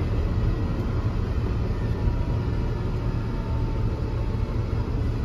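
Volvo B10M bus's mid-mounted six-cylinder diesel engine running, a steady low rumble heard from inside the passenger cabin.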